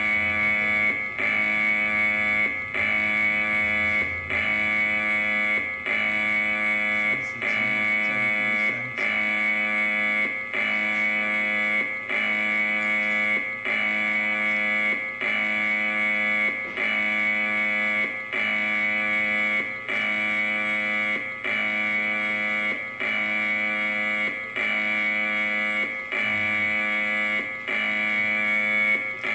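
Emergency warning alarm tone: a harsh, steady-pitched buzzing tone that repeats about once a second, with a short break between pulses.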